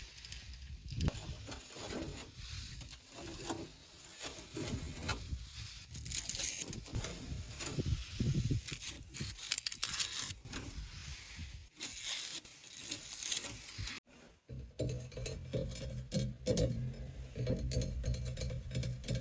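Irregular scraping, rustling and light tapping of objects being handled and rubbed. About 14 s in there is a sudden break, after which a steady low hum runs under the scraping.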